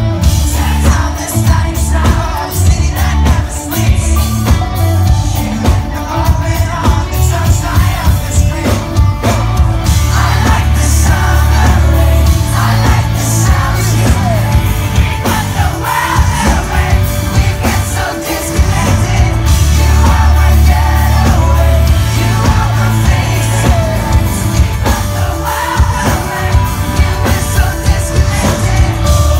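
Live pop-rock band playing: electric guitars and lead singing over heavy bass, heard from the audience.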